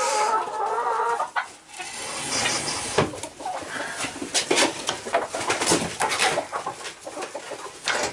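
Hens clucking, with a drawn-out call in the first second, then scattered short clicks and knocks among the clucks.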